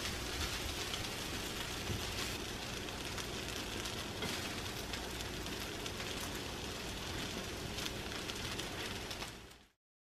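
Fried rice sizzling in a hot pan while it is stirred, a steady frying hiss with light scrapes of the spatula. The sound fades out near the end.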